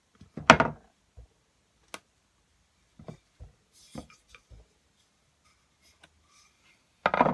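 Wooden rolling pin handled and rolled over a sheet of cold porcelain clay on a tabletop, giving scattered wooden knocks and taps. The loudest knock comes about half a second in, lighter taps follow over the next few seconds, and another loud knock comes at the very end.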